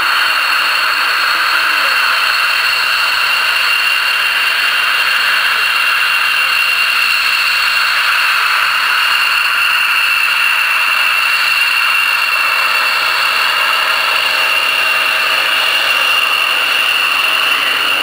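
F-16 fighter jets taxiing, their turbofan engines at low power giving a steady high-pitched whine over a broad rushing hiss.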